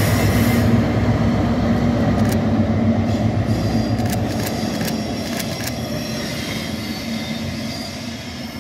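Class 60 diesel locomotive's eight-cylinder engine running as it draws away with a dead Class 92 electric locomotive in tow, the drone fading steadily. From about the middle, the wheels click over the rails and a thin high wheel squeal comes and goes.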